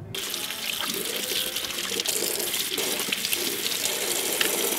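Kitchen tap running steadily, its stream splashing over bok choy leaves rinsed by hand.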